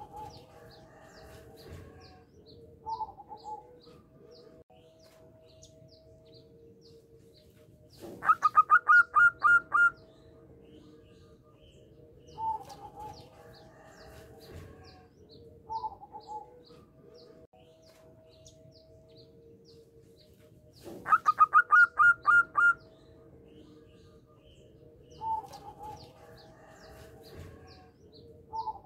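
Zebra dove (perkutut) singing: two bursts of rapid staccato cooing notes, each lasting about two seconds and the loudest sound, with short single coo notes every few seconds between them. Faint high chirps of other small birds sound in the background.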